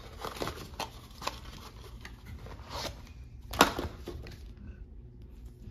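Handling noise: scattered rustles and light clicks from a clear plastic packaging bag and parts being moved about, with one sharper knock a little past halfway.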